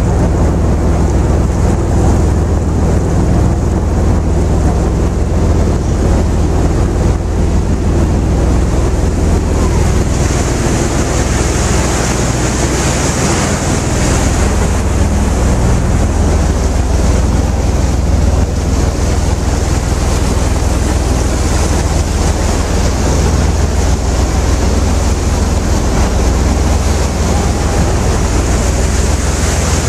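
A river cruise boat's engine running steadily under way, with water rushing past the hull and wind buffeting the microphone. A low drone sits under a steady hiss that grows stronger about ten seconds in.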